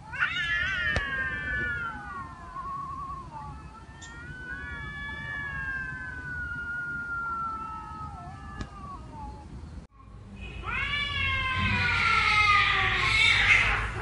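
A cat meowing in long, drawn-out calls, three of them, each sliding down in pitch; the last is louder and rougher, close to a yowl.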